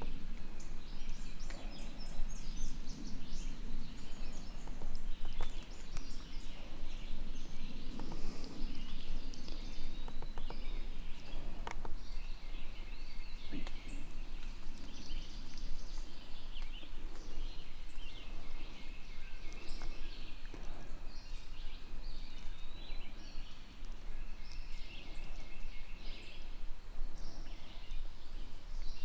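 Woodland songbirds chirping and singing again and again, over a steady low background rumble.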